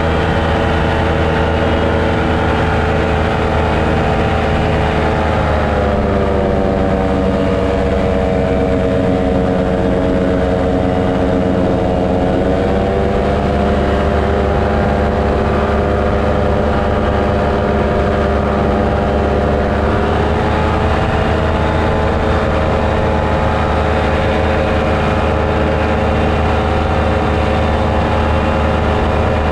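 Paramotor engine and propeller running steadily in flight. The engine speed drops about six seconds in, comes back up around thirteen seconds, and rises a little further around twenty seconds.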